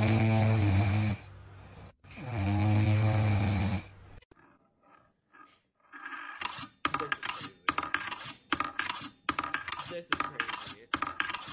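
A French bulldog snoring: two long, loud snores. A few seconds later comes a fast, irregular run of sharp little clicks and taps, like a small ball rattling in a metal desk toy.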